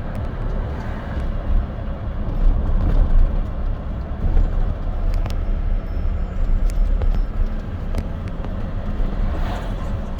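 Steady low rumble of road traffic noise, with a few faint clicks.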